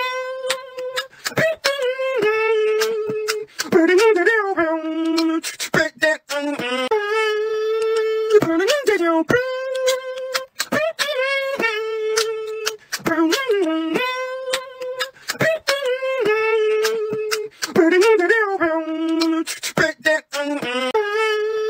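Beatboxing in a loop: one voice carries a melody in held, pitched notes, broken by sharp percussive mouth clicks and snare-like hits, in phrases of about two seconds that repeat.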